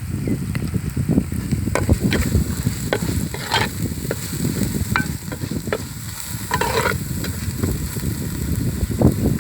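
Chicken frying in a cooking pot while being stirred with a ladle, with frequent sharp knocks of the utensil against the pot and two brief hissing bursts.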